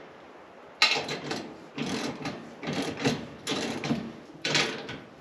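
Socket ratchet with a 7/8-inch socket tightening down a nut on a steel utility cart's front axle: repeated short runs of pawl clicks with each stroke, starting about a second in.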